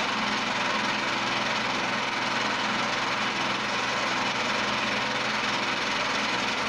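Portable concrete mixer's small petrol engine running steadily while the drum is loaded.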